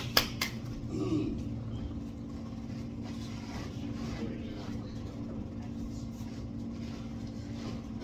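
Steady low mechanical hum with a few sharp knocks right at the start.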